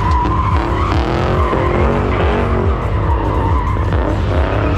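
A car drifting, its tyres squealing while the engine revs rise and fall.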